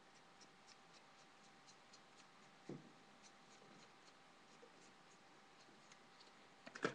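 Faint sticky clicks and rubbing from gloved hands kneading putty mixed with iron filings, with a soft thump about a third of the way in and a louder cluster of clicks near the end.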